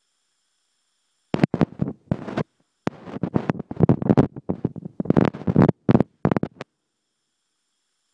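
Handling noise: a run of irregular rustling and scraping bursts, as of the phone's microphone rubbing against shirt fabric, starting about a second in and stopping near the end.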